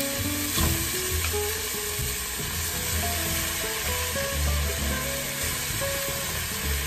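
Beef and seasonings sizzling in an aluminium pressure cooker as raw potato chunks are dropped in, over background music.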